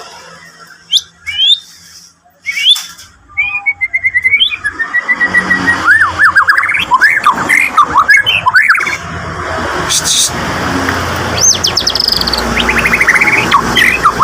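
White-rumped shama singing a fast, varied song of clear whistles, rapid trills and swooping notes, over a steady hiss. It is singing in full voice in an agitated, territorial mood.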